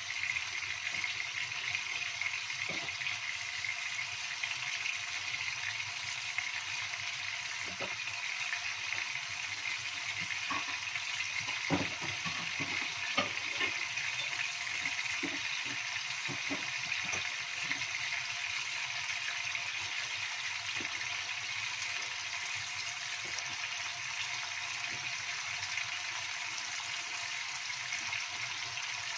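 Salmon steaks sizzling in a little hot oil in a wok: a steady frying hiss with scattered pops and spits, bunched in the middle.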